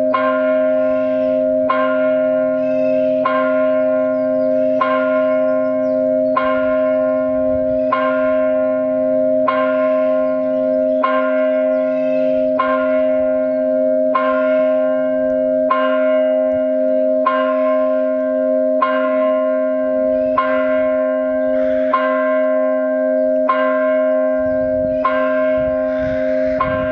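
Church tolling bell from the carillon, struck once about every one and a half seconds, each stroke ringing on into the next. This is the single-bell toll that rings five minutes before the Sunday service begins.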